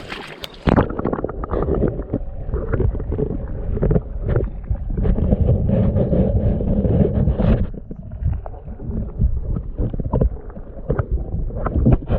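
Wind buffeting the camera microphone: a loud, irregular low rumble with short knocks, easing somewhat about eight seconds in.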